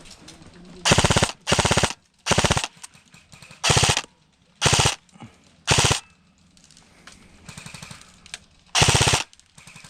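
Airsoft gun firing seven short full-auto bursts in quick succession, each a rapid rattle of shots lasting about a third of a second, with a fainter burst near the end.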